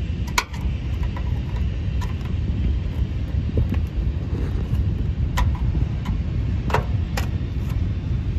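Scattered sharp clicks of a forked trim-removal tool catching and prying on a plastic clip and panel of a riding mower's frame, a cluster of them in the second half, over a steady low rumble.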